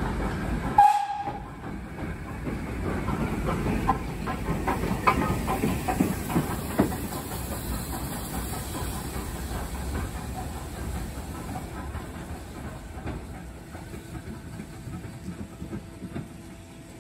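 BR Standard Class 2MT steam locomotive moving light engine, hissing steam, with a run of clicks over the rail joints, fading as it draws away. A brief high toot sounds about a second in.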